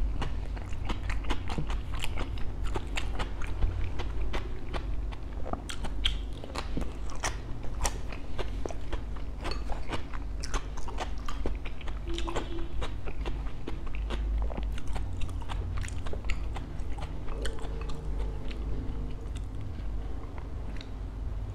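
Close-miked chewing of crispy fried bánh khọt, with many sharp crunches and wet mouth sounds throughout.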